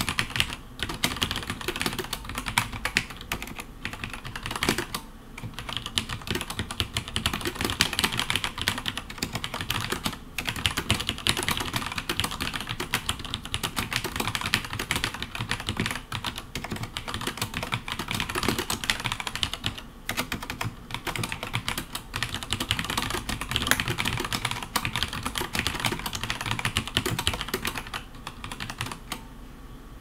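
Fast touch typing on a Cherry G80-11900 mechanical keyboard with vintage Cherry MX Black linear switches and GMK keycaps: a dense, continuous clatter of keystrokes, broken by a few brief pauses.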